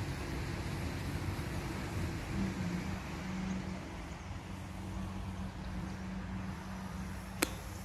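Distant RC plane's electric motor and propeller droning steadily over a background of outdoor noise. There is one sharp click about seven and a half seconds in.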